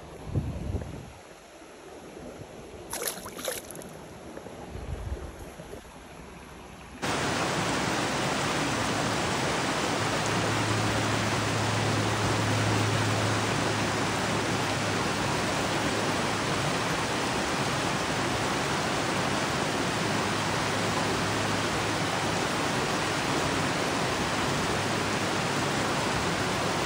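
Rushing mountain stream: a loud, steady hiss of running water that comes in suddenly about seven seconds in. Before it, quieter water with a few brief knocks.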